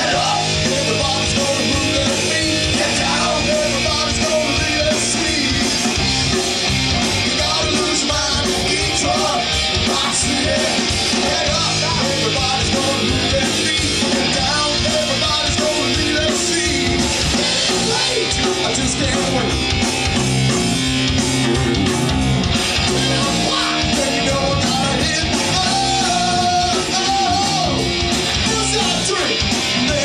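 Live rock band playing continuously on stage: electric guitars, bass guitar and a drum kit.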